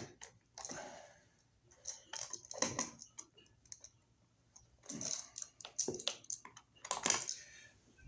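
Stiff copper electrical wires being bent and folded by hand behind a wall outlet receptacle: clicks and scraping rustles in several short bursts.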